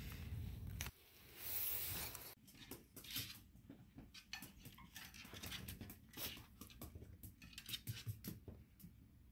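Faint scattered clicks and scratches from a small poodle moving behind a baby gate: claws on the floor and paws against the gate. They follow about a second of low outdoor rumble that cuts off.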